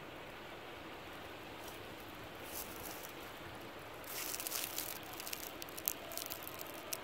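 Faint steady outdoor hiss, then from about four seconds in an irregular crackling and rustling of dry pine needles and leaves as hands work close to the ground.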